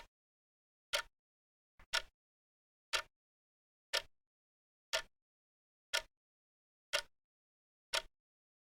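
Wristwatch ticking, one sharp tick a second, with silence between ticks; about two seconds in a tick comes doubled, a faint click just ahead of it.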